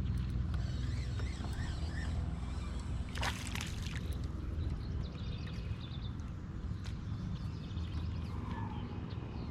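Water sloshing against a kayak's hull under a steady low rumble, with birds chirping and a brief rushing sound about three seconds in.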